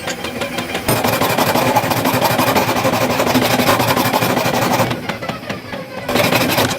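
Loud workshop machinery running with a dense clatter. It drops away about five seconds in and comes back briefly near the end.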